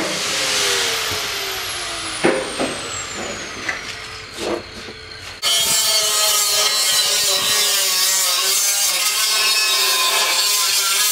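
Angle grinder spinning down, its whine falling in pitch, with a few knocks on the metal. About five seconds in it starts again and cuts steadily into a 55-gallon steel drum.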